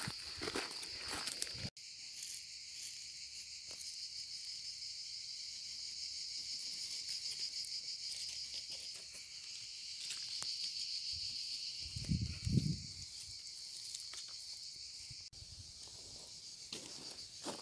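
Cicadas buzzing in a dense, steady high-pitched chorus that swells and eases a little, with a brief low thumping about two-thirds of the way through.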